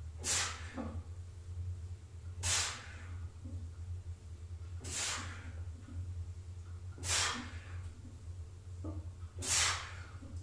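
A lifter's short, noisy breaths between front-squat reps under a 100 kg barbell, about one every two seconds, five in all, over a steady low hum.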